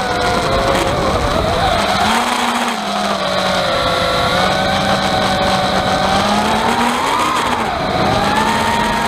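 Quadcopter's EMAX 2205 brushless motors and 5-inch props whining through the onboard camera's microphone, the pitch gliding up and down with throttle, with a steady low hum beneath. A rattling sound runs through it, which the owner suspects is the microphone inside the Foxeer Legend camera having come loose.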